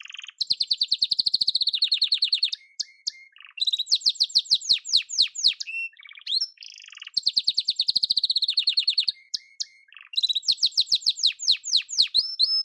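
Male domestic canary singing: rapid trills of quick repeated notes and sweeping whistles, in several phrases with short breaks between them.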